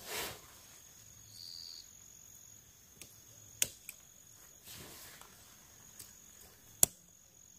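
Tent poles and nylon being handled while a tent is pitched: rustling of the fabric and a few sharp clicks, the loudest two about three and a half and seven seconds in, as the poles are fitted. A steady high cricket trill runs underneath.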